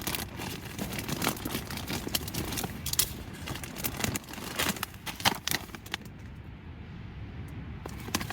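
Plastic food packets rustling and crinkling as they are handled, with irregular crackles and small clicks that thin out about six seconds in.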